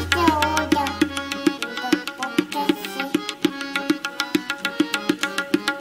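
Tabla playing a quick, even run of strokes over steady held accompanying tones.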